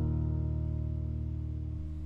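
Background acoustic guitar music: a strummed chord ringing on and slowly fading.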